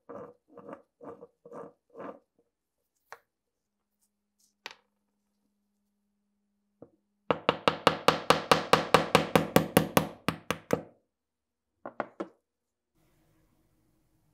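A hammer taps fast on the end of a rusted pepper grinder's threaded steel shaft, about six sharp strikes a second for nearly four seconds, knocking the seized shaft out of the grinder body, with two more taps near the end. Before that, the wrench turning the seized nut on the shaft gives a run of evenly spaced clicks, about three a second.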